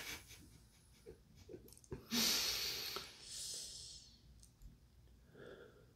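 A person takes a draw on a vape pen, with a few faint clicks, then breathes the vapor out in a long breathy exhale starting about two seconds in and fading over about two seconds. A short hum follows near the end.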